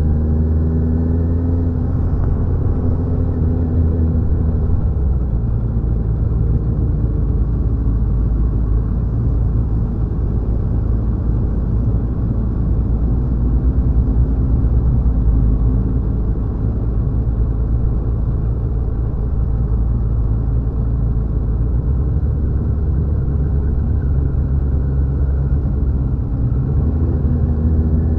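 A motor vehicle under way: a steady low rumble of engine and travel noise, with the engine note rising as it accelerates near the start and again at the end.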